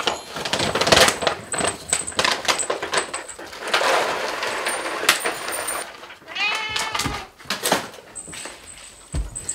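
A domestic cat meowing once, a single falling cry about two-thirds of the way in, amid sharp clicks and a stretch of rattling and rustling in the middle.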